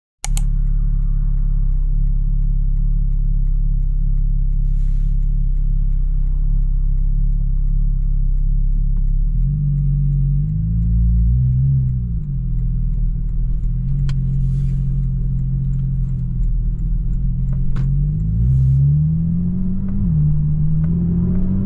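Porsche 718 Boxster GTS 4.0's naturally aspirated flat-six engine running as the car is driven: a steady low drone at first, then from about halfway the engine pitch climbs and drops back, twice, as it accelerates and shifts.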